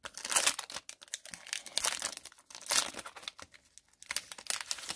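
A 2014-15 Upper Deck Series 1 hockey card pack wrapper being torn open by hand, crinkling in several bursts with short pauses between.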